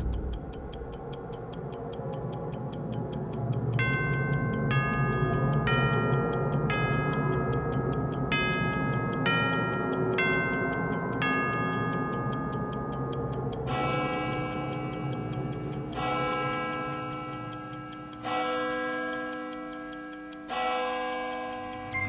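Soundtrack music built on a fast, even clock-like ticking. A bell-like melody of single notes enters about four seconds in, and fuller sustained chords take over from about fourteen seconds.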